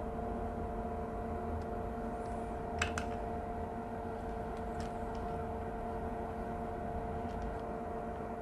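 Quiet bench soldering on a connector pin: a steady electrical hum with two faint steady tones runs underneath, with one sharp click of a tool a little before three seconds in and a few fainter ticks.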